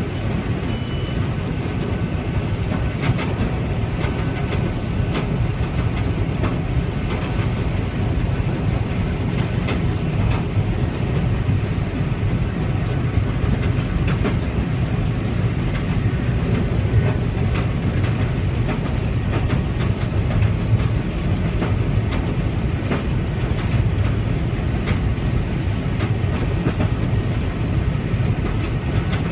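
Harvest machinery running steadily: a loud low drone with a continuous rattle and scattered clicks.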